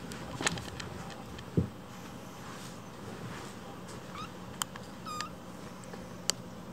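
A small kitten giving two short, high, squeaky mews about four and five seconds in, with a few light clicks and rustles around them.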